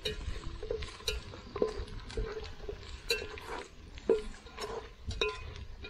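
Metal spoon stirring food in a stainless steel pot, clinking against the pot's sides in short ringing taps about twice a second.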